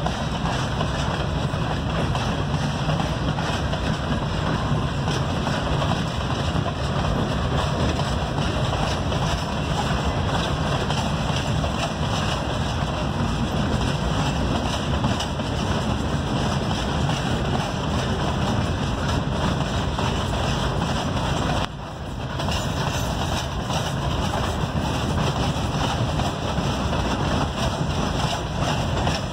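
Empty freight hopper cars of a sand and stone train rolling past, a steady noise of wheels running on the rails.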